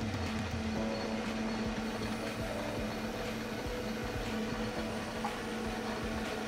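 Metal lathe running with its chuck turning, a steady mechanical hum from the motor and belt drive.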